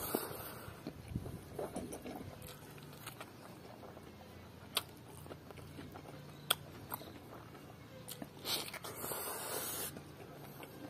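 Close-up eating sounds of a person chewing pork curry and rice eaten by hand: wet mouth clicks and lip smacks scattered through, with a short breathy hiss about nine seconds in.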